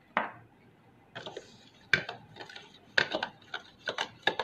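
A utensil clinking and scraping against a stainless-steel bowl as an egg, butter and sugar mixture is stirred, in irregular quick strokes starting about a second in.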